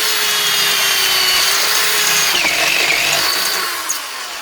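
Electric drill running under load as it bores a hole through the VW Beetle's body beside the battery. Its whine sinks slowly in pitch and eases off a little near the end.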